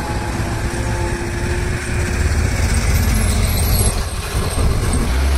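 Diesel engines of heavy goods trucks running as they climb the grade, with a container truck passing close by; a deep steady drone that grows louder about two seconds in.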